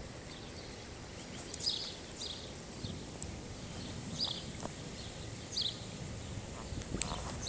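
Short bird chirps, four or so spaced a second or two apart, over a steady low rushing noise.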